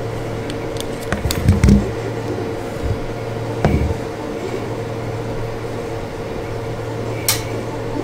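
A steady low electrical hum, with a few small metallic clicks and taps from flush cutters and a tiny JST crimp terminal being handled. The clicks come as a short cluster about a second in, then a single knock, then one sharp click near the end.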